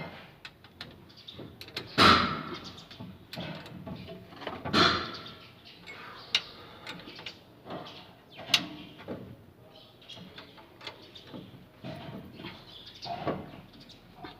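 Scattered metal clanks, clicks and scrapes of hand tools and parts as a replacement starter motor is fitted, with two louder clanks about two and five seconds in.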